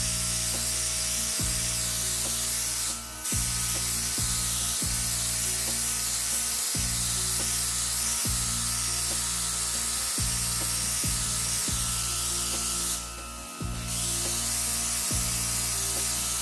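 Cordless handheld airbrush, its compressor humming steadily while it sprays tattoo ink with a continuous hiss of air. The hiss cuts out briefly about three seconds in and again about thirteen seconds in.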